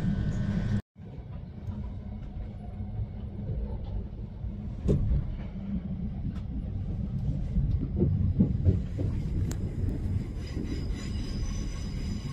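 Heathrow Express electric train carriage running, heard from inside: a steady low rumble with a few knocks and rattles around the middle, and a faint high whine near the end.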